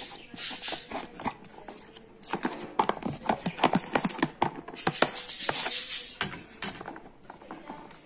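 Metal fork clicking and scraping against a white tray while stirring grated carrot and chopped boiled egg, in quick uneven runs of taps.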